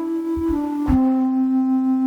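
MIDIPLUS MiniEngine sound module playing its General MIDI piccolo patch: a short descending run of notes, the last one held for over a second, with faint low knocks beneath.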